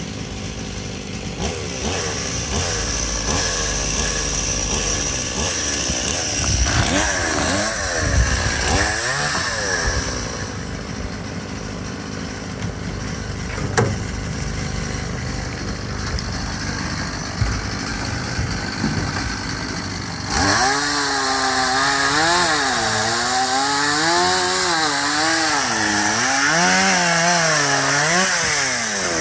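Gas chainsaw running, revved a few times in the first part, then from about two-thirds through cutting an overhanging tree limb under load, its pitch rising and falling.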